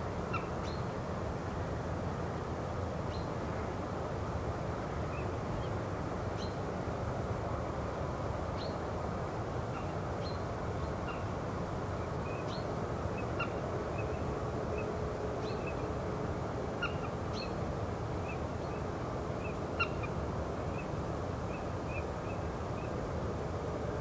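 Steady rush of river water with many short, high bird chirps scattered over it.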